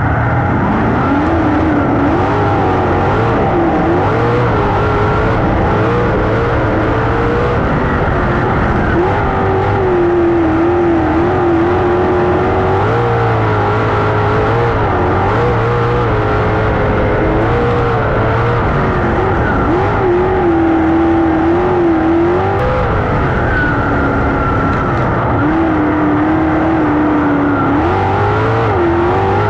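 410 sprint car's V8 engine heard onboard while racing on a dirt oval, running hard the whole time, its pitch rising and falling again and again as the throttle comes on and off through the turns.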